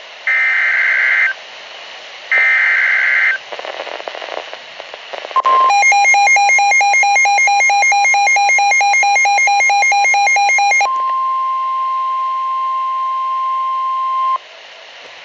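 Emergency Alert System tones. First come two roughly one-second screeching digital SAME header bursts. After a short hissy gap and a brief beep, a rapidly pulsing multi-tone attention signal runs for about five seconds. Then a steady single-pitch alert tone holds for about three and a half seconds and cuts off sharply.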